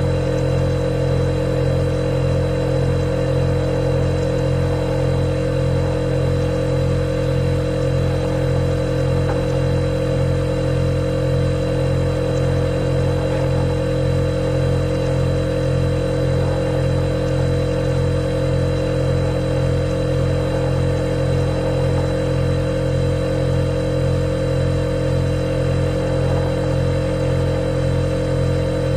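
Refrigerator running with a steady, even hum and a thin high tone above it.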